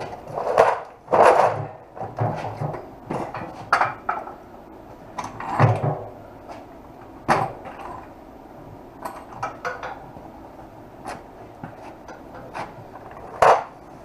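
Irregular knocks, clunks and rattles of heavy motorcycle parts being shifted and handled during a teardown. The loudest knocks come about a second in, around six and seven seconds, and near the end.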